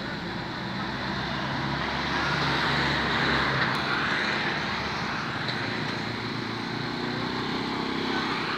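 Street traffic with small motorbikes and cars passing. One vehicle swells past about three seconds in, and another motorbike engine rises near the end.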